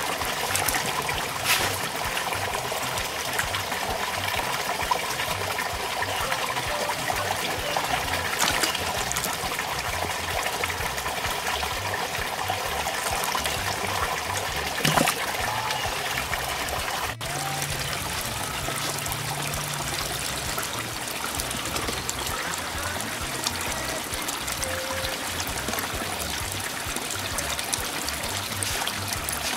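Water trickling steadily into a turtle pond, with a few short knocks, the loudest about halfway through.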